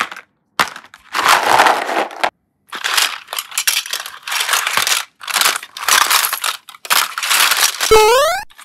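A series of crunchy crushing noises in about seven separate bursts, followed near the end by a short rising whistle-like sound effect.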